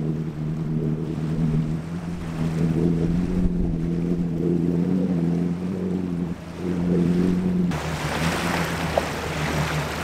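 Motorboat engine running steadily as the boat pulls away across the lake, heard muffled, with waves washing on the beach.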